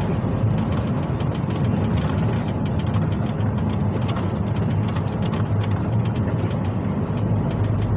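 MAN diesel truck's engine running steadily while driving, heard from inside the cab with road noise.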